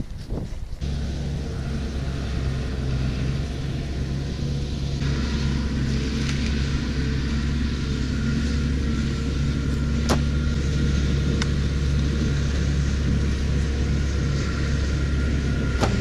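Diesel engine of farm machinery running steadily at a constant speed, with a higher whine joining about five seconds in. Two sharp clicks sound near the end.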